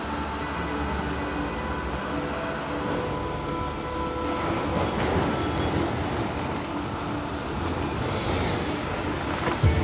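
Factory machinery running steadily: a dense mechanical noise with several whining tones that shift pitch now and then.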